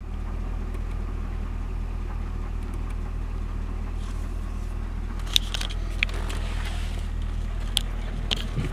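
A 2011 Cadillac CTS-V's 6.2-litre supercharged LSA V8 idling steadily with an even low hum. From about halfway on, a few sharp clicks sound over it.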